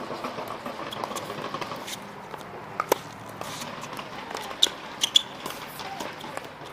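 A tennis ball giving a few sharp pops off racket strings and court, with two close pairs of hits near the middle.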